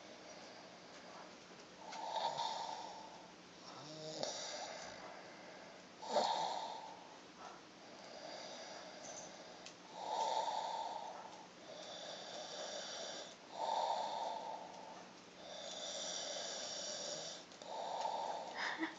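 Snoring in a steady rhythm of breaths in and out, about one every two seconds, that sounds like Darth Vader's respirator breathing.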